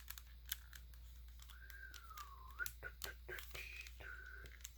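Plastic Rubik's cube being turned by hand: a run of quick, light clicks and clacks from the layers snapping round. A faint whistle glides down and back up in the middle, with short higher whistled notes near the end.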